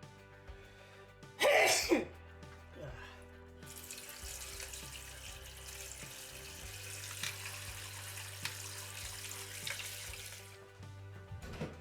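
Water running from a tap for about seven seconds, starting about four seconds in, over background music; a short loud burst comes about one and a half seconds in.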